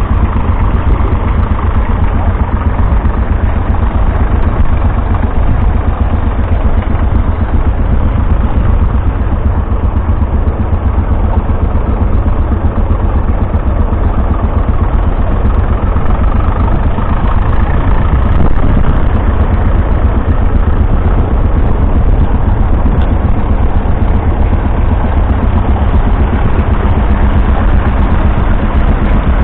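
Tractor engine running steadily, pulling a plough.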